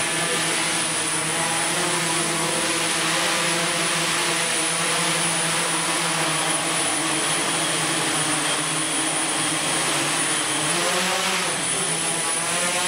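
Large octocopter drone's propellers running in a steady multi-tone hum as it hovers, the pitch wavering about ten seconds in as it climbs.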